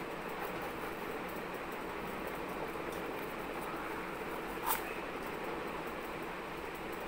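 Cardboard tubes being handled and pushed together, with faint light ticks and one sharp click about two-thirds of the way through, over a steady hiss of background noise.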